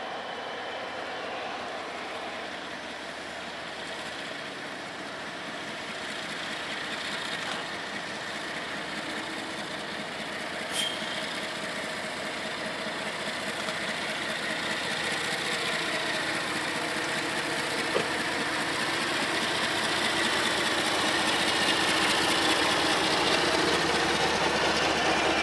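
CSX freight train's lead diesel locomotives approaching and passing close by, with engine rumble and wheel-on-rail noise growing steadily louder through the second half.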